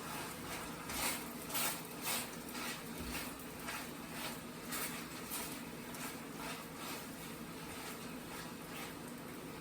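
Food cooking in pans on a stovetop: a steady low hiss with soft irregular pops or ticks, about two a second, fading toward the end.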